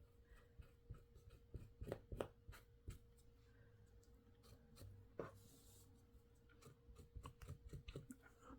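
Faint scratching and light ticks of a pen drawing an outline on a surface that is very hard to write on.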